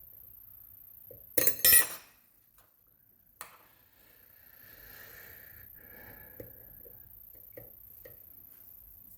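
A pair of loud, sharp metal clinks about a second and a half in, then a single click and soft handling noise with a few small ticks: steel picking tools knocking against the Evva 3KS lock.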